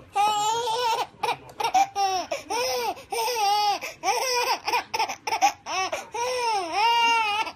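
A baby laughing in a quick run of high-pitched, rising-and-falling laughs.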